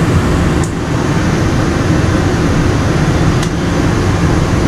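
Steady low rumble of a moving vehicle, with two brief clicks, one under a second in and one about three and a half seconds in.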